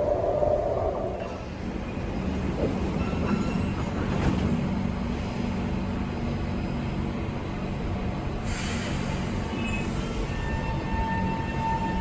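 SMRT C151 metro train with high-frequency shunt-field chopper control: a low rumble, then a hiss of air from the brakes about 8 seconds in. Near the end the chopper's steady whine sets in as the train starts to draw power to move off.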